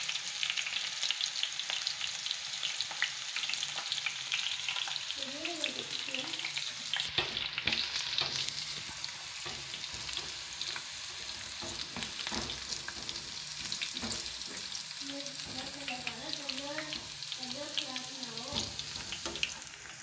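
Sliced onion and whole dried red chillies sizzling and crackling in hot oil in an aluminium kadhai, with a spoon stirring them at times. The onion is being fried to golden brown for the tempering (tadka) of kadhi.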